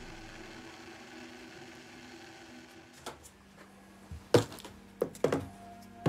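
A handful of sharp knocks and clinks of hard objects being handled, starting about halfway through, with the loudest knock a little past the middle and another near the end, over faint steady tones.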